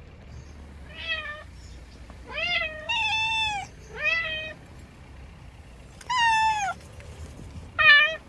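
A cat meowing about six times, short high meows of around half a second each, every one rising and then falling in pitch.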